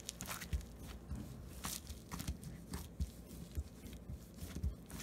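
Hands pressing and smashing a sticky, wet dough flat with the fingers on a plastic-covered table: faint, irregular soft squishes and taps.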